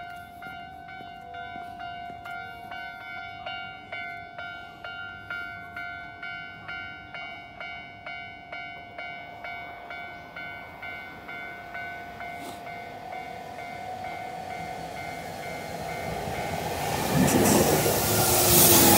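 Japanese level-crossing warning bell ringing at about two strikes a second. A Keio Inokashira Line commuter train then approaches and passes the crossing close by, its rumble building to the loudest part of the sound near the end.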